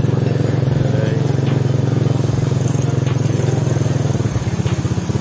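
A motorcycle engine idling steadily. Near the end its firing beats slow and become more distinct.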